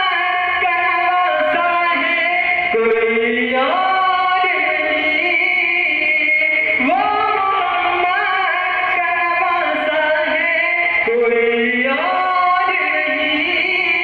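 A man singing a naat, a devotional Urdu poem in praise of the Prophet, solo into a microphone. He sings in long wavering phrases, each sliding up in pitch as it begins, with a new phrase every three to four seconds.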